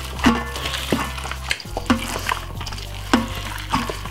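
Hands rubbing wet marinade into a joint of lamb in a stainless-steel mixing bowl: wet squishing and scraping with several sharp knocks against the bowl, over background music with a steady bass line.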